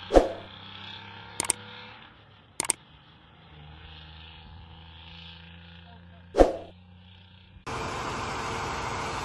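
Road train's diesel engine drones steadily as it draws away, broken by four sharp clicks. Near the end the sound cuts abruptly to a louder, steady rushing noise.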